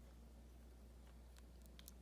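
Near silence: a steady low hum, with a few faint small clicks in the second half.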